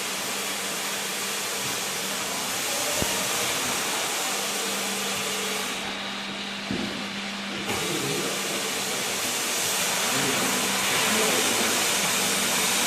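COMAC Innova 85B ride-on floor scrubber-dryer running: a steady strong hiss from its suction with a low hum under it. The hiss drops away for a second or two midway, then returns.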